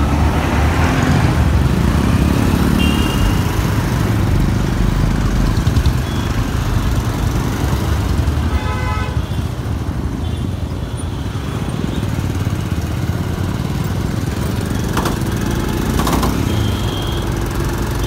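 Motorcycle engine running steadily under way in city traffic, with a vehicle horn honking for about a second midway through and a couple of short high beeps earlier and near the end.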